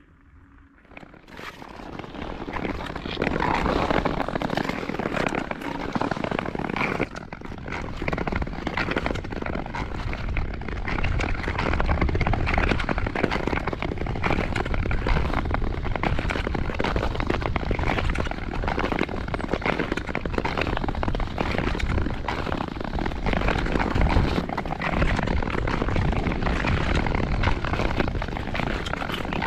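Nordic ice skate blades gliding and scraping over frozen lake ice: a loud, continuous crackling rasp that starts about a second in.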